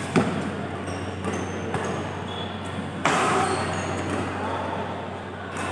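Badminton play: a sharp crack of a racket on the shuttlecock just after the start, a few smaller knocks, and several short high squeaks of shoes on the court floor, over a steady low hum.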